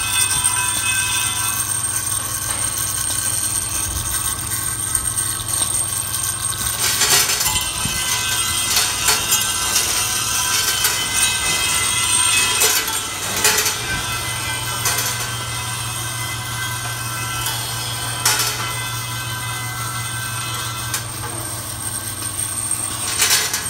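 Step feeder for axle shafts running: a steady electric machine hum with a sharp metallic click or clatter every few seconds, at irregular intervals, as the steel parts are fed.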